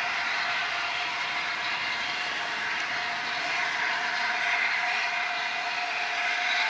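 Steam locomotive Tornado, a Peppercorn A1 Pacific, moving slowly towards the listener with a steady hissing noise that grows a little louder near the end.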